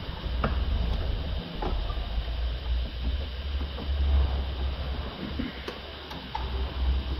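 Light clicks and knocks of hand work on a car's rear door window glass and frame, over a low rumble that swells and fades.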